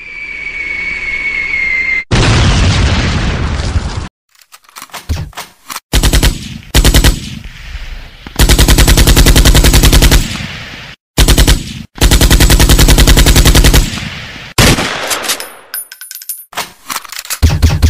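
Rapid automatic gunfire in several long bursts, as a sound-effects track. It opens with a falling whistle and a loud blast about two seconds in.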